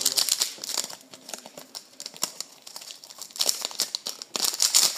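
Foil wrapper of a Pokémon trading-card booster pack crinkling as it is torn open and pulled away from the cards, in bursts: a cluster at the start, another a little past halfway and the loudest near the end.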